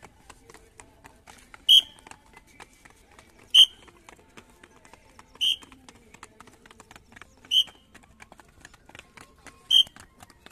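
A coach's whistle blown in short, sharp blasts at a steady pace, about one every two seconds, five times. Between the blasts come the faint, quick footfalls of several runners on concrete steps.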